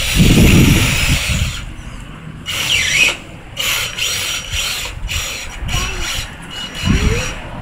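Electric motor and gearbox of an RC 6x6 rock crawler whirring in stop-start bursts as it crawls over logs, with a brief rising whine near the end.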